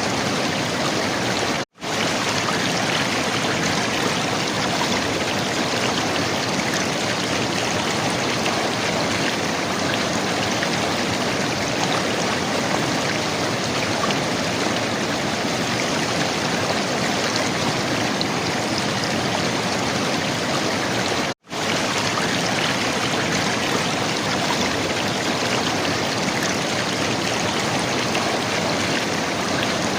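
River water flowing and gurgling in a steady rush, broken twice by a split-second drop to silence.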